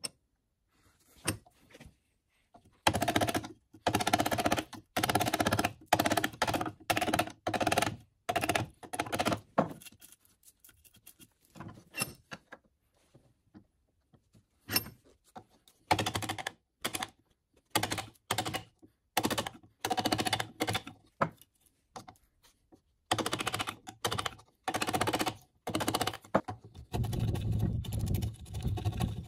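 Hand chisel chopping and paring out the trench of a cross halving joint in a timber piece held in a bench vise: bursts of rapid wooden knocks and clicks, separated by short pauses.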